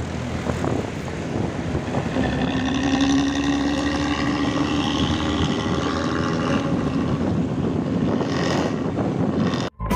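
Intercity bus's diesel engine running under power with a loud growling ('ngorok') exhaust as it goes by, a steady drone holding for several seconds in the middle. The sound cuts off abruptly just before the end.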